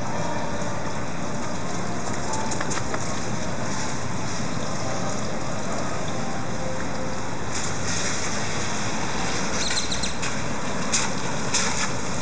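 Steady rushing outdoor background noise, with a few short clicks and rustles in the last few seconds.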